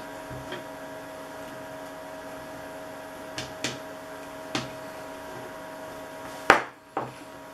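Pliers working a small washer onto a fitting set in a dry bag's tarpaulin, giving a few scattered clicks and a louder sharp snap about six and a half seconds in, over a steady faint hum.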